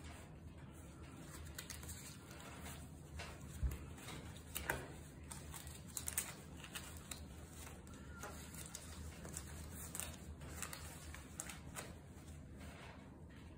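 Gloved hands handling and folding a cotton shirt: soft rustling of fabric and nitrile gloves with scattered small clicks, and a single soft thump about three and a half seconds in.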